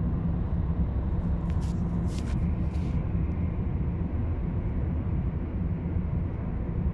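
Road and engine noise heard inside a moving Hyundai Elantra's cabin: a steady low rumble, with a few brief hissing streaks about two seconds in.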